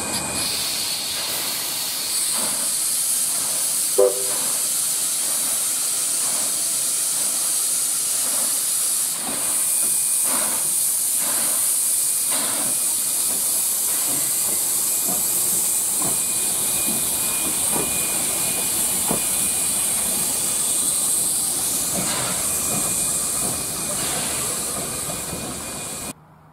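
Steam locomotive 2705, built by Hunslet as an NSW Z27 class engine, moving off slowly with steam hissing loudly from its open cylinder drain cocks, the hiss running almost without a break, with a few slow exhaust beats in the middle. A brief toot about four seconds in. The sound cuts off abruptly near the end.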